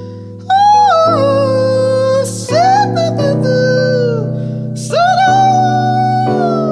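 Female jazz vocalist singing three phrases of gliding, held notes over sustained chord accompaniment in a live performance.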